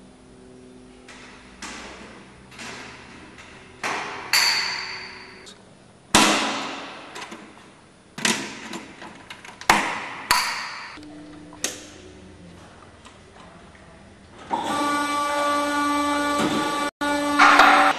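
A series of metallic clanks and knocks, each ringing briefly, as a mobile column lift is handled and its control cable connector is plugged in. About fourteen and a half seconds in, the lift column's electric motor starts and runs with a steady whine.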